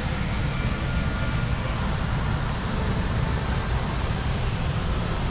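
Steady low rumble with an even hiss: constant background noise with no distinct events.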